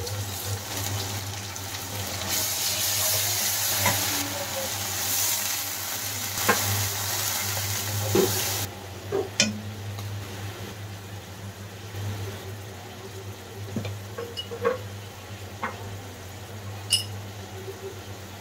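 Onions and spice paste sizzling in hot oil in a non-stick kadai, stirred with a spoon, with sharp spoon clicks against the pan. The sizzle cuts off abruptly about nine seconds in, leaving a quieter pan with scattered spoon taps.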